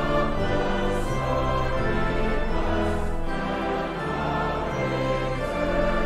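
Choral music with orchestral backing: a choir singing slow, held chords that change about once a second.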